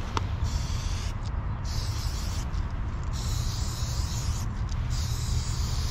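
Aerosol spray-paint can hissing in four bursts of about a second each, with short pauses between, as paint is laid on. A steady low rumble runs underneath.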